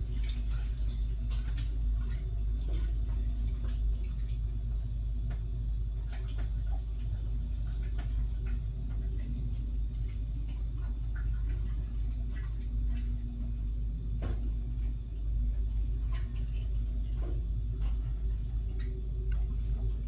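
Steady low rumble, with faint irregular slurping and clicking of water being lapped up.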